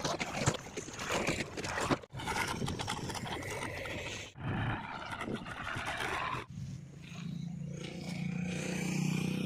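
Diesel tractor engines running under load across quick cuts, then a steady low engine idle, likely the JCB backhoe loader's, for the last few seconds.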